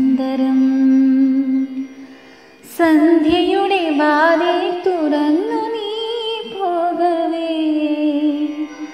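A woman singing a wordless, hummed melody: one long held note, a short break about two seconds in, then a wavering, ornamented line.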